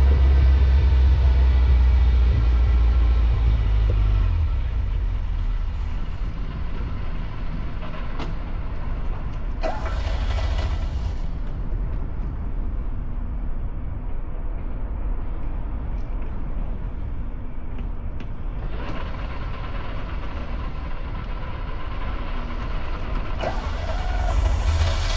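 Ferrari 308 V8 engine running, with the misfire and loss of power that the owner reports. A strong low drone eases off about four seconds in and goes on steadily, with a stretch of rushing noise around ten seconds and another from about nineteen seconds on.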